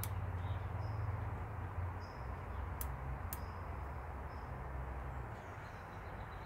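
Workshop room tone: a steady low hum under a light hiss, with two light clicks about half a second apart midway and faint high bird chirps.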